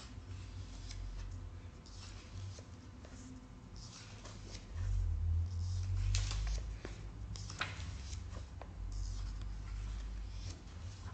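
Paper pages of a book being leafed through and flicked over, a run of short rustles and flicks, busiest around the middle, with low bumps of the book being handled.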